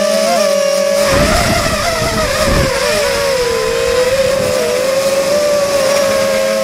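FPV quadcopter's Sunnysky 2300 kV brushless motors on 3S, turning 5x3x3 three-blade props, whining steadily. Between about one and three seconds in the pitch wavers with throttle changes and a low rush of wind noise comes in.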